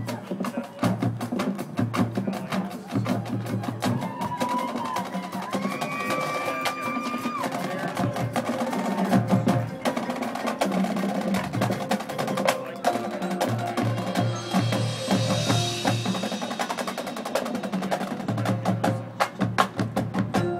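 A high school marching band playing, led by its percussion: fast drum strokes and rolls with sharp, clicking hits over held band notes.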